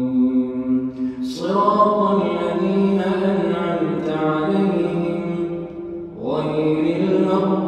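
A man reciting the Quran in a slow, melodic chant, holding long notes. He pauses briefly about a second in and again near the end, each time starting a new phrase.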